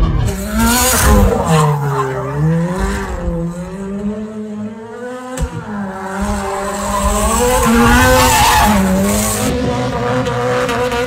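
A drift car's engine revving up and down hard, its pitch rising and falling again and again, with tyres skidding and squealing as the car slides. The engine is loudest near the start and again about eight seconds in.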